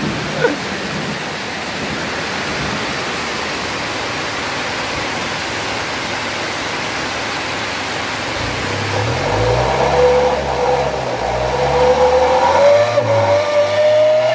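A Mitsubishi L300's engine is revved repeatedly through a stainless 'srigala' whistle exhaust tip from about eight seconds in. A thin whistle from the tip rises with the revs, not very loud, as this tip only sounds at high RPM. Before that there is a steady hiss of heavy rain.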